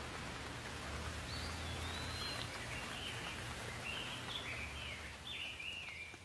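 Steady hiss of pouring rain with a low rumble underneath, and a songbird singing a string of short whistled phrases over it from about a second in until near the end.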